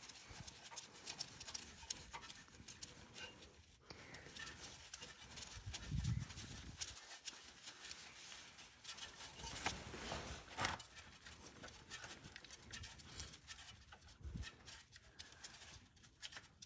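Faint scattered clicks, taps and knocks of hand tools and metal parts being handled, with a couple of dull thumps about six seconds in and near the end.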